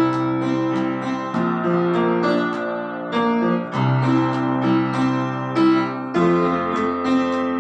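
Piano playing sustained chords over a low bass line that changes every second or two, with notes struck in a steady rhythm.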